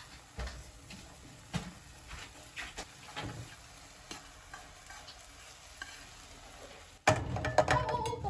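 Food frying in a pan while it is stirred, with scattered clicks and scrapes of the utensil against the pan. Near the end a much louder, voice-like sound comes in.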